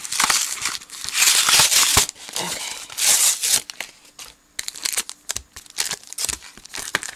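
Cardboard backing of a plastic blister pack being torn open by hand: two long, loud rips about one and three seconds in, then short crinkling and crackling of the packaging.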